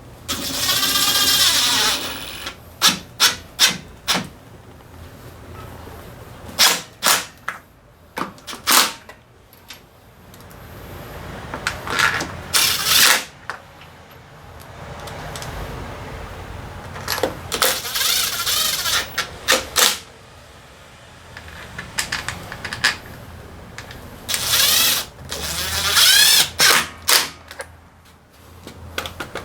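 A power drill-driver running bolts in short runs of a second or two, its motor whine rising in pitch each time, four times. Sharp metallic clicks and knocks of parts and tools come between the runs.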